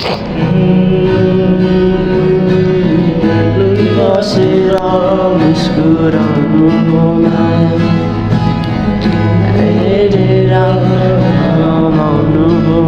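Background music: a song with a singing voice over plucked-string accompaniment.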